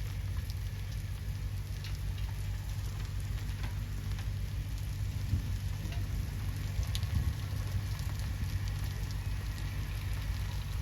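Steady rain falling, with scattered sharp drop ticks over a constant low rumble.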